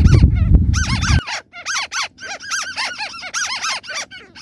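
White-browed crakes calling: a rapid chattering run of short, squeaky arched notes, several a second. A low rumble underlies the first second and then stops.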